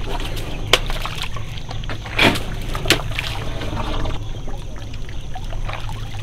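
Asian elephant's trunk and feet squelching and sloshing in a wet mud pit, with a few sharp wet slaps, the loudest about two seconds in.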